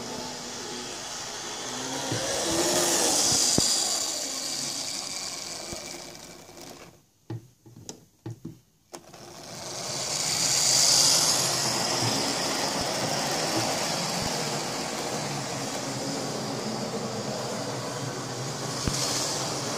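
Hornby OO-gauge Class 56 model diesel locomotive running on the track: a steady motor whir with wheel noise on the rails, swelling twice as it passes close. About seven seconds in the sound drops almost to nothing for a couple of seconds, with a few clicks.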